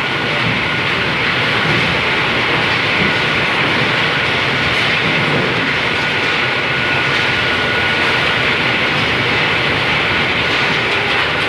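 Processing machinery running steadily, a continuous mechanical noise with a faint high-pitched whine held throughout.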